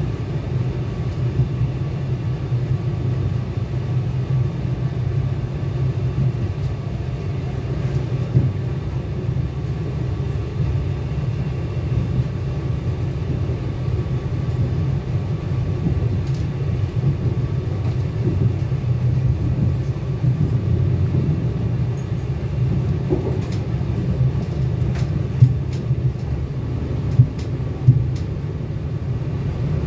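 Cabin running noise of a moving NI Railways Class 4000 (C4K) diesel multiple unit: a steady low rumble from the train underway on the rails. A few sharp clicks come near the end.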